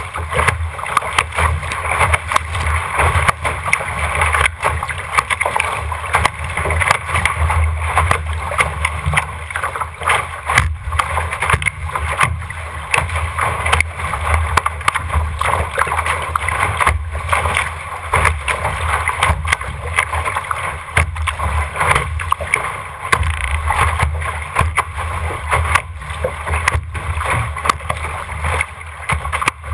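RS600 trapeze skiff planing fast through chop: a continuous rush of water along the hull with frequent irregular slaps of waves and spray against the bow, over a low rumble.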